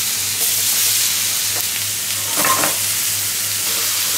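Watermelon slices sizzling in a hot frying pan: a loud, steady sizzle, briefly louder about halfway through.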